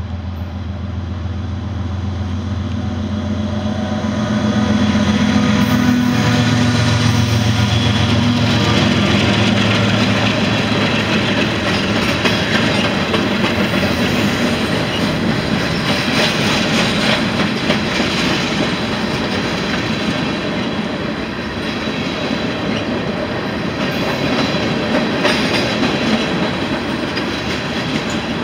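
Freight train of covered hoppers and tank cars rolling across a steel railway bridge. A deep steady hum swells and fades over the first ten seconds or so, then the wheels and cars keep up a dense, rattling clatter and rumble.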